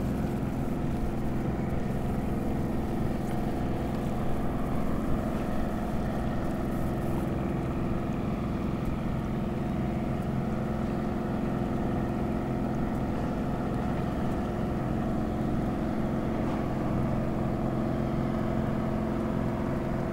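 Boat engine running steadily: a constant low drone with a few steady tones.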